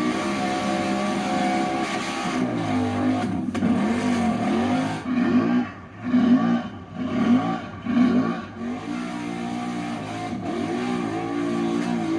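ATV engine running under throttle, its pitch rising and falling several times through the middle of the stretch as the throttle is worked, then settling back to a steady drone.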